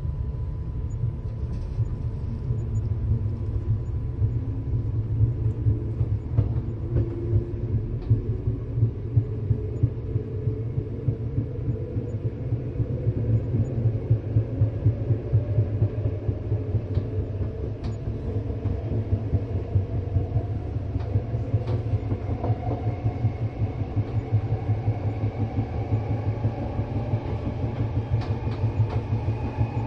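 Inside a train car pulling away and gathering speed: the wheels on the rails make a heavy, steady rumble, and a whine climbs steadily in pitch as the train accelerates.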